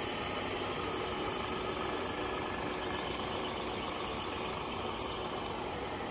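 Ribon RUR 1000 cylindrical grinder running, a steady, even machine hum with no knocks or rattles, which the owner takes as the sign of a sound wheel spindle.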